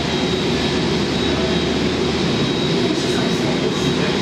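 Airbus A380's four turbofan engines at low taxi thrust: a steady rush of jet noise with a thin, steady high whine.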